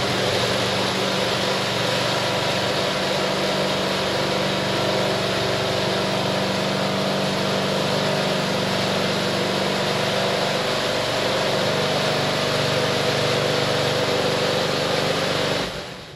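Small electric vibrator motor with an enlarged counterweight shaking a steel wire-mesh screen deck: a steady hum and rattle as dirt and rocks tumble across the screen, cutting off suddenly near the end. The owner judges the motor too small for the job and wants bigger ones.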